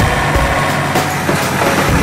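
MAXXI-Pajale tracked combine harvester running steadily as it works through standing corn, its engine and threshing machinery making a continuous loud noise.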